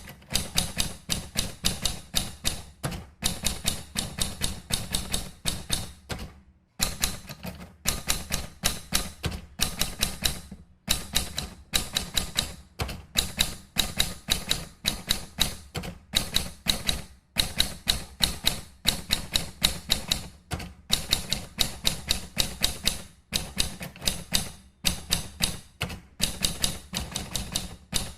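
Typewriter keys being struck in quick runs, several sharp clacks a second, broken by short pauses.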